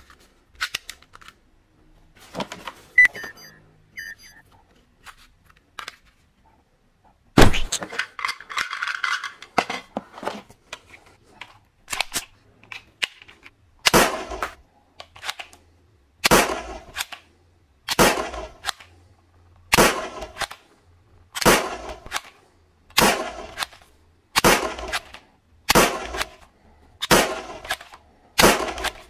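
Toy gun shots: a few clicks and short electronic beeps, then one loud shot about a third of the way in. From about halfway, shots repeat steadily about every second and a half until the end.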